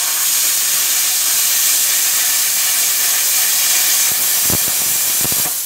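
Hand-held plasma cutter hissing steadily as its arc cuts through 8 mm steel plate, with a few low pops near the end.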